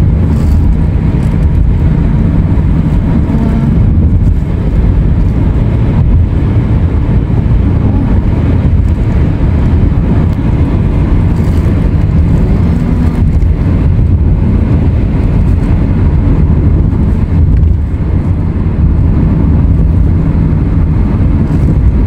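Car driving at a steady speed: a steady low rumble of road and engine noise heard from inside the car.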